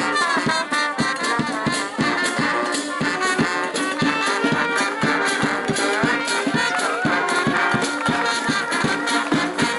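Brass band music with a steady drum beat and rattling percussion.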